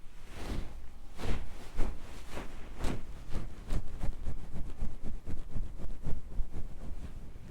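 Close-miked ASMR rubbing strokes on the microphone, each stroke a brief rush of noise with a deep rumble. The strokes are slow and separate at first, then come quicker and denser from about four seconds in.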